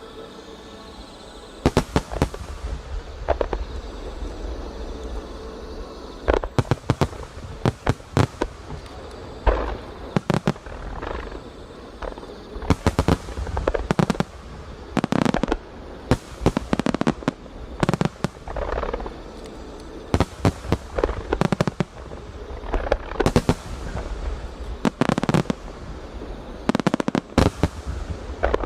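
Aerial fireworks shells bursting in rapid, irregular volleys, beginning about two seconds in: sharp bangs, each with an echoing tail.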